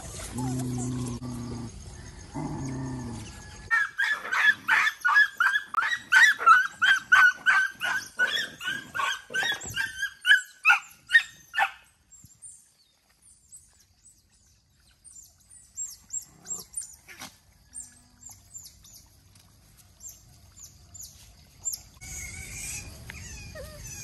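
Dog vocalising: a low growl in the first few seconds, then a run of loud, high-pitched puppy yelps, about two a second and each falling in pitch, lasting some eight seconds. Faint high chirps follow.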